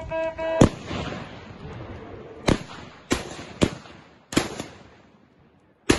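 About six hunting gunshots fired at running wild boar over some five seconds, each a sharp crack with a short echo. The first and loudest comes about half a second in and cuts off a held high note. The rest follow at irregular gaps, the last near the end.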